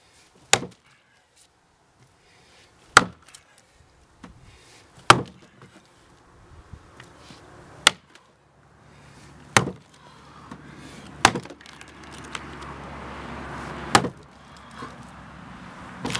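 Underhand chop: an axe swung down between the feet biting into a horizontal log, seven sharp strikes two to three seconds apart. A low steady noise grows in the background over the second half.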